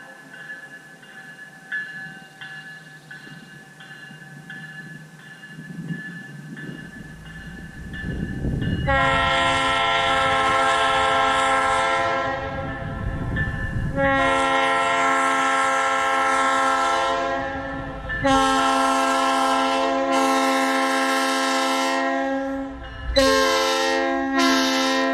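Locomotive Nathan PK3 air horn sounding a chord in four blasts, the second much the longest and the third short, starting about nine seconds in. A Nathan K1L bell rings steadily throughout, with a low train rumble building beneath it.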